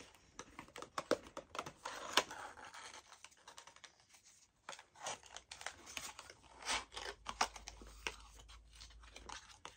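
Small cardboard advent box being opened by hand, with paper inside unfolded: irregular crinkling, scraping and tearing of card and paper.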